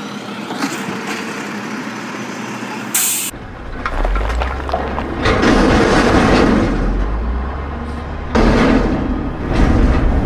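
A garbage truck running, with a short sharp hiss about three seconds in. Then a deep rumble with heavy crunching and crashing sound effects, loudest around six seconds and again near nine.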